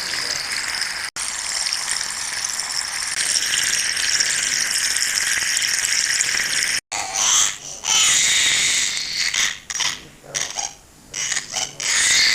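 Sound-effect clips spliced together with abrupt cuts: a steady high hiss for the first seven seconds or so, then shorter, irregular noisy bursts.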